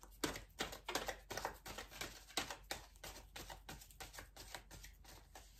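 A deck of oracle cards being shuffled by hand: a quick, irregular run of light card clicks and slaps, several a second.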